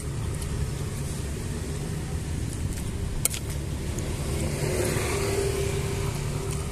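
Steady low rumble of a motor vehicle engine running nearby, with a single sharp clink of a metal spoon against a ceramic plate about three seconds in.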